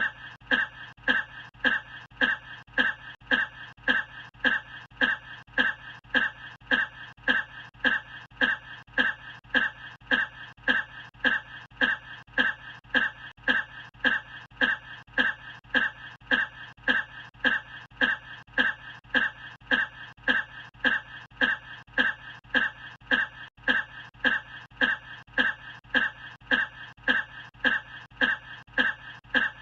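One short cough repeated over and over at an even, rapid pace, each cough identical, like a single clip looped.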